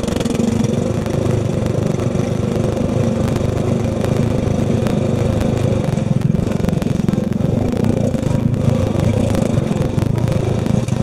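Riding lawn tractor's engine running steadily as it drives across gravel towing a rowing-shell cart, with some light clatter.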